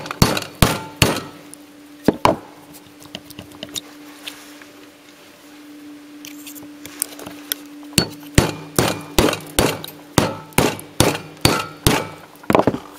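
Hammer blows on a steel drift, knocking the magnetic shunt lamination packs out of a microwave oven transformer core with sharp metallic clinks. A quick run of strikes at the start, a pause of a few seconds, then a steady series of blows, a little over two a second, through the second half.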